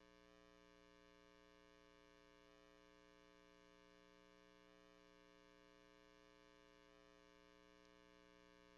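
Near silence with a faint, steady electrical hum that does not change.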